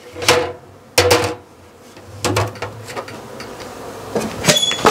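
Knocks and metallic clatter at a four-frame stainless-steel honey extractor as it is stopped and the honey combs are lifted out of its drum, ending with a sharp metallic clang that rings briefly.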